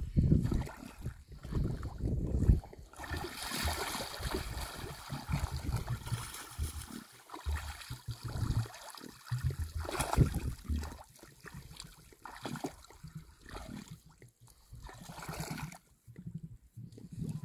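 Emus wallowing in a shallow muddy puddle, the water sloshing and splashing in irregular bursts as they shift and dunk.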